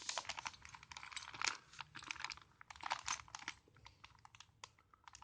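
A plastic bag of small screws and hardware being handled and opened, crinkling and clicking. The handling is dense for about three and a half seconds, then a few scattered clicks.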